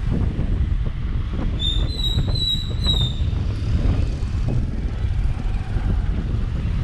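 Wind rushing over the microphone and low road rumble from a Tazer Mini electric scooter being ridden. About a second and a half in, a high-pitched squeal comes in three short pieces over about a second and a half.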